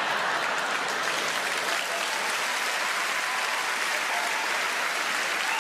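A large theatre audience applauding and laughing: a steady wash of clapping.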